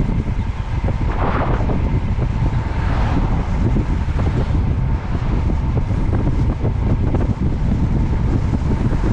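Wind buffeting the microphone, a loud, continuous low rumble with crackling gusts.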